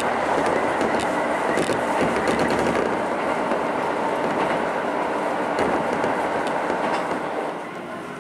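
Keisei commuter train running, heard from inside the passenger car: a steady rumble of wheels on rail with occasional sharp clicks from the rail joints. It becomes quieter about seven and a half seconds in.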